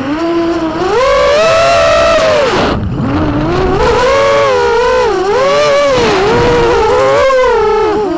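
FPV racing quadcopter's four brushless motors (1806 size, 2300 kV, on 5045 bullnose props) whining, heard from the onboard camera, the pitch rising and falling constantly with throttle. A little under three seconds in the throttle is chopped and the whine drops sharply before climbing back.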